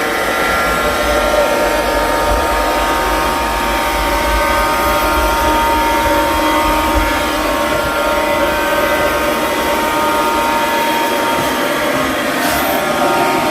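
Sapper curling robot vacuum cleaner running, a steady whir from its fan and motors with a constant high motor whine.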